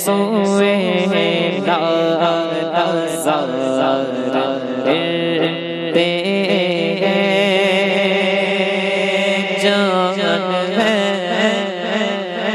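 Male voice singing an Urdu naat, drawing out a gliding, ornamented melodic line over a steady low drone.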